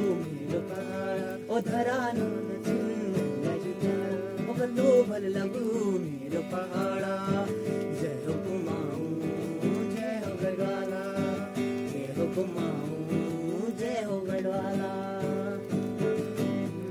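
Acoustic guitar being played with a man singing along to it.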